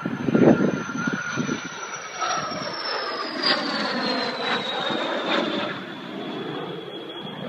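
Fouga Magister jet trainer flying past overhead, its twin Turbomeca Marboré turbojets roaring and whining. The roar is loudest about half a second in, and the high whine falls steadily in pitch as the jet passes and moves away.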